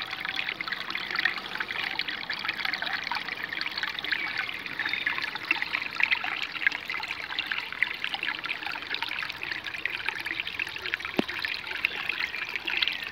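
Small shallow stream trickling over rocks and stones, a steady babble of water.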